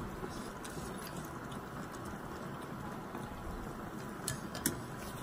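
Eating from a cup of instant noodles: a few soft, short clicks of utensils over a steady low hiss of background noise.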